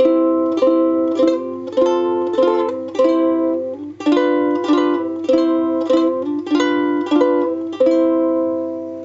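Homemade gourd ukulele strummed in a simple chord pattern, about two strums a second, changing chord about halfway through. The last chord is left to ring out near the end. Its tone is sharp and rings on long.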